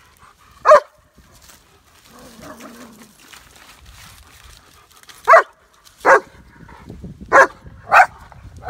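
A dog barking in short, sharp single barks: one bark, then four more spaced under a second apart near the end.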